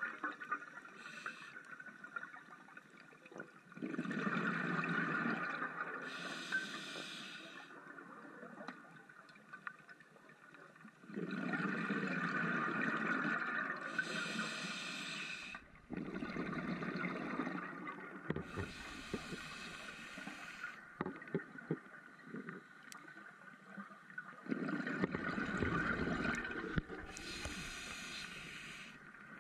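Scuba diver breathing through a regulator underwater: rumbling bursts of exhaled bubbles alternating with shorter, higher hissing inhalations, about four breaths in all.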